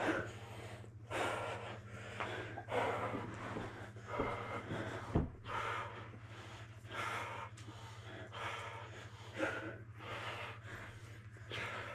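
Grapplers breathing hard, with forceful breaths and exhales about once a second, and a dull thud about five seconds in. A steady low hum runs underneath.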